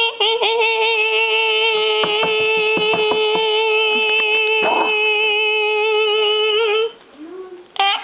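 A person's voice holding one long, steady sung note that stops about seven seconds in, with a few light clicks under it; a short rising vocal sound comes near the end.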